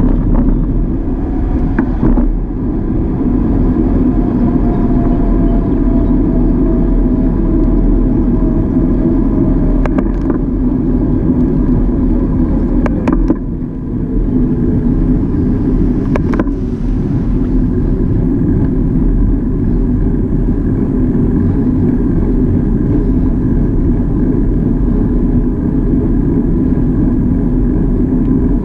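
Wind rushing over an action camera's microphone and tyre noise from a bicycle rolling on a paved road: a steady, loud rush with a faint tone that slowly falls in pitch over the first half. A few sharp knocks, about four, break in, most likely bumps in the road jolting the bike.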